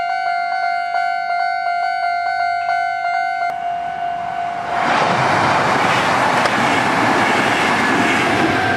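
Japanese level-crossing electronic warning bell ringing in a rapid, even repeat. About halfway through, a Kintetsu train passes over the crossing, and the rush and rumble of its wheels on the rails grows louder than the bell, which keeps ringing underneath.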